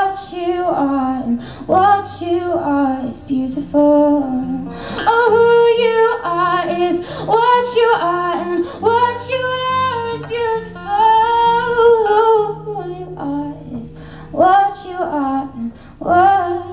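A woman singing live, accompanying herself on acoustic guitar, with long held, gliding vocal notes over the guitar.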